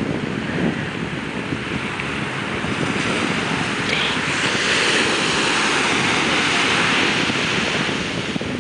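Ocean surf breaking and washing up the beach, a steady rushing hiss that swells about three seconds in as a wave breaks. Wind rumbles on the microphone.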